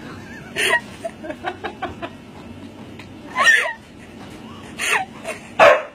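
A person laughing in short bursts, four in all, the last the loudest.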